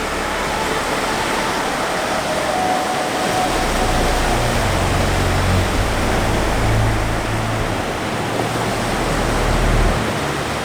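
Steady rush of ocean surf breaking on a beach, with a low rumble that comes and goes in the middle.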